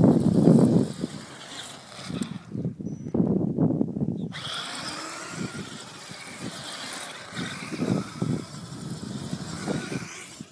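Axial Wraith radio-controlled rock crawler with a 19-turn brushed electric motor, driving over beach sand. Its motor and drivetrain whine runs under irregular low rumbling that is loudest in the first second, and the whine comes in more clearly from about four seconds in.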